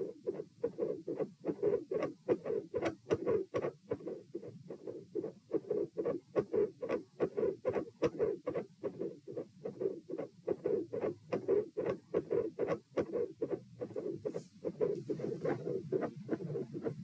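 Heart sounds heard through a stethoscope: a regular run of beats, each with a mid-systolic click and a split second heart sound.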